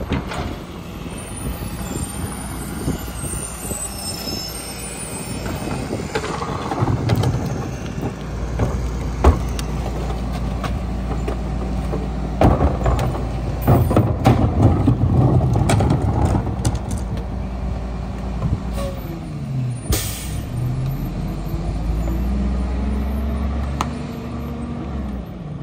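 Mack MR garbage truck's diesel engine running, with a wheeled trash cart clanking against the Leach rear-loader hopper several times as it is tipped. A short air-brake hiss comes about 20 s in, then the engine speed rises and falls as the packer works.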